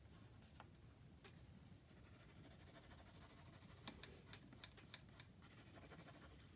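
Faint scratching of a water-soluble graphite pencil, used dry, drawing quick, loose strokes on sketchbook paper, with a short run of sharper scratches about four to five seconds in.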